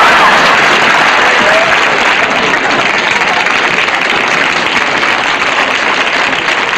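Studio audience applauding with a few shouts, loudest at the start and easing off slightly.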